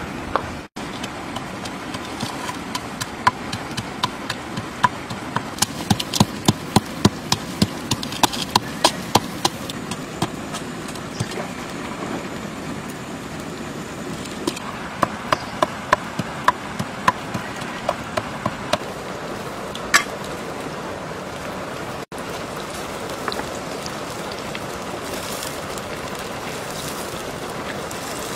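Oyster mushrooms sizzling steadily as they deep-fry in hot oil in a pan over a wood fire, with runs of sharp crackles and pops, about two a second.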